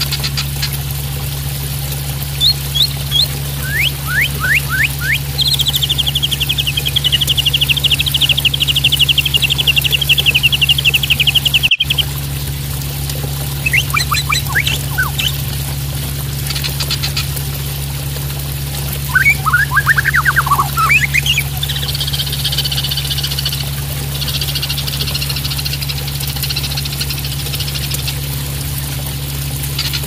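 Juvenile white-rumped shama singing: quick downward-sweeping whistles, a long rapid trill, more sweeping whistles and buzzy repeated notes near the end, over steadily splashing water and a low hum. The sound drops out for an instant about twelve seconds in.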